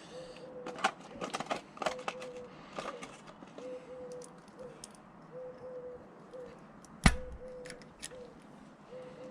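A pigeon cooing repeatedly in short low phrases, mixed with scattered sharp metallic clicks and taps of hand tools on the engine, the loudest a single knock about seven seconds in.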